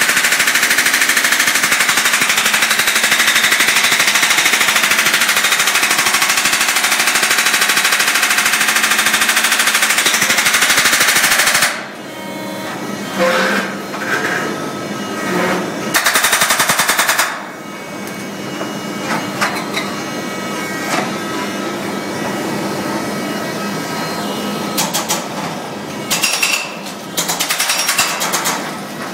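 Brokk demolition robot's hydraulic breaker hammering reinforced concrete in rapid, continuous blows, which stop abruptly about twelve seconds in. After that the machine runs more quietly, with short bursts of hammering and scattered knocks.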